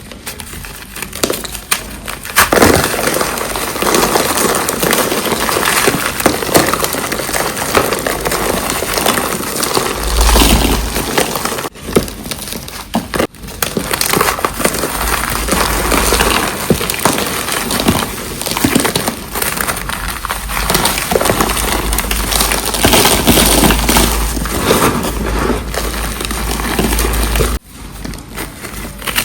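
Reformed cornstarch chunks being crushed: dense, crunchy crackling and crumbling, with a few sudden breaks where it cuts off and starts again.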